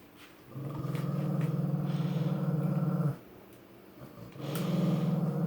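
Dog growling, two long low growls: the first starts about half a second in and lasts about two and a half seconds, the second starts near the end. It is a warning growl over a giant chew bone that another dog is chewing.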